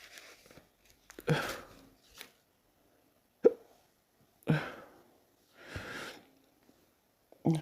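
A man hiccupping hard, four sudden hiccups a second or few apart, some a sharp click and some with a short voiced catch, with a breath drawn between them.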